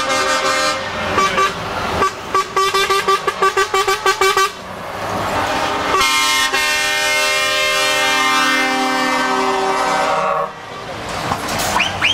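Truck air horns sounding as big rigs drive past: a quick string of short toots, about four a second, then one long multi-tone blast of about four seconds that cuts off suddenly.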